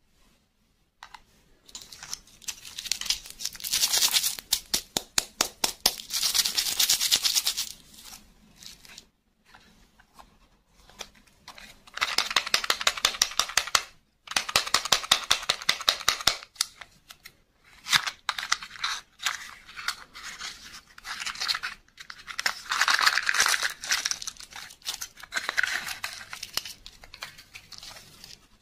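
Close-up crinkling and rustling of plastic candy wrappers and a small cardboard box being handled and opened, with tearing of the packaging. It comes in several bouts of dense crackling separated by brief pauses.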